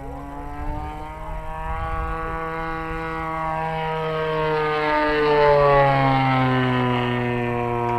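Desert Aircraft DA-35 two-stroke gasoline engine of a 73-inch Laser 230z RC aerobatic plane flying past, its propeller buzz growing louder and then dropping in pitch about five seconds in as the plane goes by.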